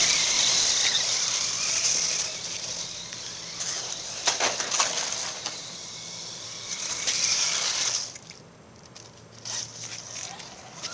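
Electric radio-controlled truck driving through snow: a hiss of tyres churning snow, loudest at first, easing about two seconds in and dropping away near the end, with a few clicks along the way.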